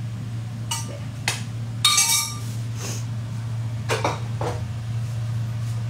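Metal cookware knocking and clanking as a pan of masoor dal is tipped out into a wok, with a louder ringing clatter of pan against pan about two seconds in.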